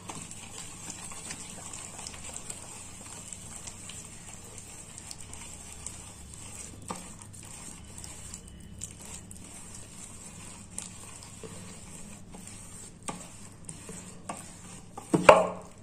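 A hand mixing wet cornflour-and-chilli masala paste in a stainless steel bowl: soft squelching and smearing of the paste, with a few faint taps against the steel. A short, louder bump comes near the end.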